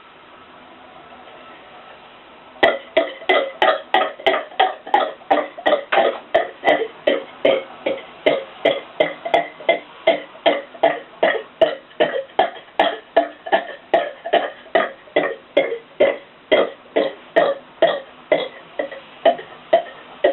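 A boy burping in rapid, nearly even succession, short burps at a little over two a second, starting about two and a half seconds in.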